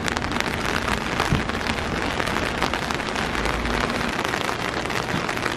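Steady rain falling, a dense, even patter of close drops.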